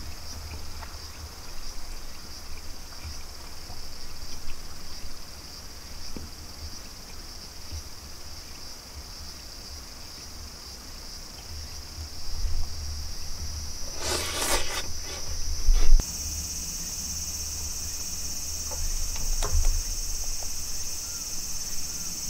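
Insects calling in a steady, high continuous drone. About two-thirds through it suddenly gets louder and higher, just after a brief loud rasping burst.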